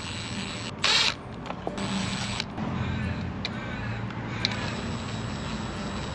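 Cordless drill-driver running in one short burst about a second in, driving a terminal screw on a winch solenoid, followed by a few light clicks of tool and wire handling.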